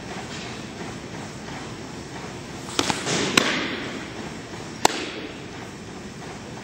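Softball windmill pitch in a large gym: a few sharp slaps during the wind-up and stride about three seconds in, then a single sharp pop of the ball into the catcher's mitt near five seconds, echoing in the hall.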